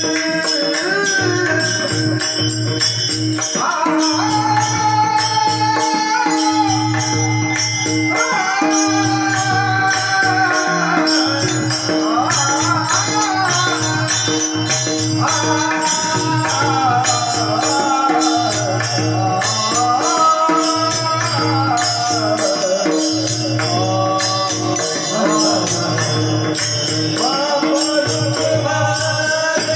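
Marathi devotional bhajan music: a gliding sung melody over a steady drone, with a low drum beat pulsing about every two seconds and a jingling rattle keeping time.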